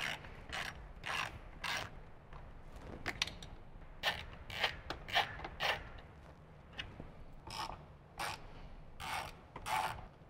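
Ratchet wrench with a 5/32 Allen hex bit clicking as it is worked back and forth to back out bolts, in short runs of clicks with pauses between them.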